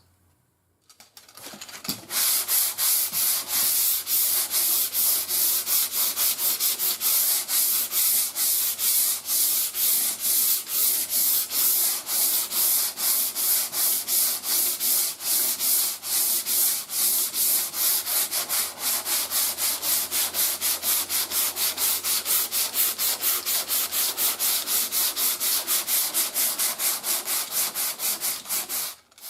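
Sandpaper on a hand sanding block being rubbed over primer and putty on a car body panel, in quick, even back-and-forth strokes, about four a second. The strokes start about two seconds in after a brief silence.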